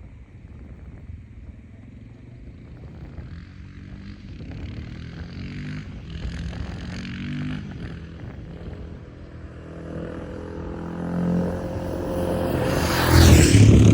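Royal Enfield Himalayan 450's single-cylinder engine running through an HP Corse titanium full exhaust system and being revved. The revs rise and fall a few times, then build to the loudest, highest rev near the end.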